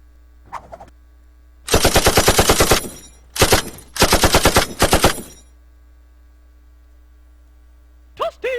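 Machine-gun sound effect: rapid automatic fire, about eleven shots a second, in three bursts, the first about a second long. A short sliding tone comes in near the end.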